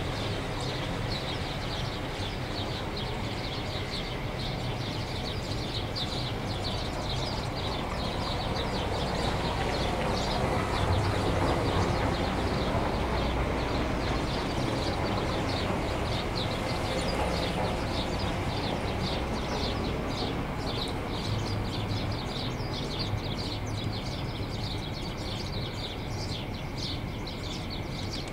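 Small birds chirping rapidly and continuously over a steady low rumble, which swells for several seconds in the middle.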